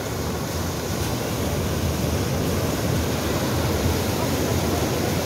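Sea surf breaking and washing over the shallows of a sandy beach in a steady rush.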